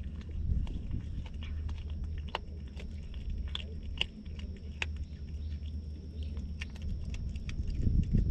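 Stray cat chewing and crunching a raw fish: irregular sharp wet clicks and crunches over a steady low rumble, with a louder low bump near the end.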